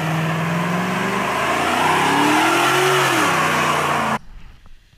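Pickup truck engine running loudly and revving, its pitch climbing and then dropping about three seconds in. It cuts off suddenly after about four seconds.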